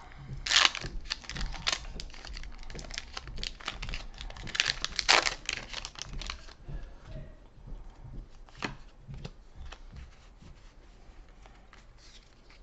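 Foil wrapper of a Pokémon Sword & Shield booster pack crinkling and being torn open, with two loud rips, one about half a second in and one about five seconds in. After about six seconds it turns to a softer rustle with a few sharp clicks as the cards are handled.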